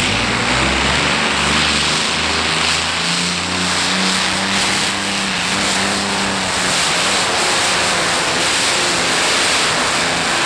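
A heavy-modified pulling tractor running its engines at full power under load during a pull: a loud, steady blare whose pitch wavers slightly.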